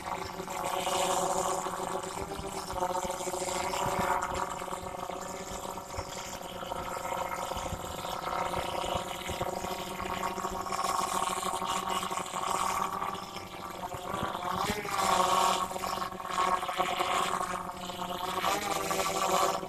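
DJI Phantom 3 Pro quadcopter hovering, its propellers giving a steady hum of several tones over a hiss. The pitch wavers briefly about three quarters of the way through and again near the end as the motors change speed.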